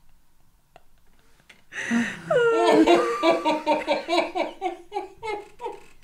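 Men laughing hard. Starting about two seconds in, it opens with a high squealing whoop, then runs on in rapid ha-ha pulses, about four a second, that die away near the end.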